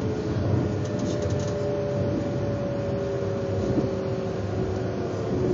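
Interior running noise of a Narita Express electric train: a steady rumble of wheels on the track, with a few faint whining tones that drift slowly in pitch.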